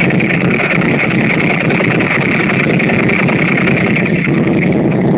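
Ducati 998S's 998 cc L-twin engine running steadily at idle, heard close to its exhaust.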